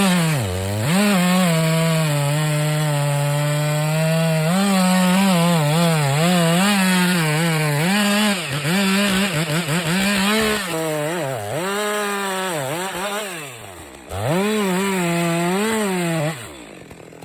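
Chainsaw cutting into a large trunk under full throttle, its engine pitch repeatedly sagging and recovering as the chain bites into the wood. It eases off briefly a little after the middle, revs again, then drops away near the end.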